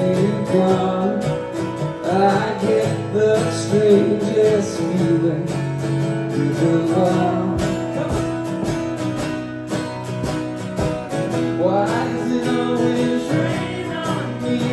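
Two acoustic guitars strummed together in a live pop-rock song, with a man's voice singing in places.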